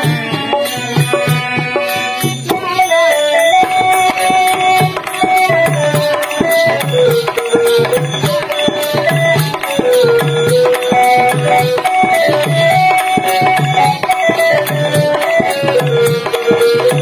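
Harmonium playing a slow melody in held, stepwise notes for a sad song from Tamil stage drama, with a hand drum keeping a steady rhythm underneath.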